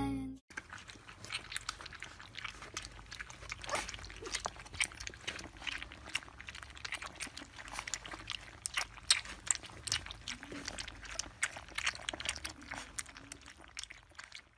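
Several puppies lapping and licking from a shared dish: a dense, irregular patter of small wet tongue clicks and smacks.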